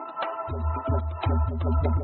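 Electronic dance mashup music with a steady beat. The bass drops out at the start and comes back in about half a second in.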